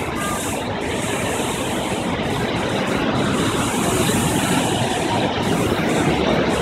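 Steady, loud rushing noise with no distinct events, growing slightly louder over the last few seconds.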